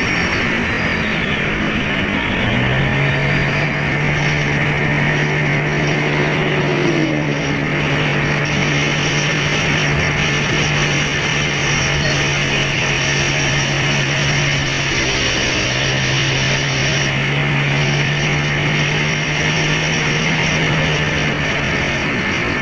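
Background music with guitar over a steady, loud rushing noise.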